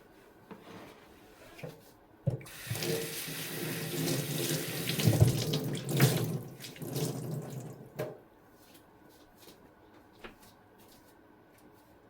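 Kitchen tap turned on about two seconds in, water running into the sink for about six seconds, then shut off abruptly. A few faint light clicks follow.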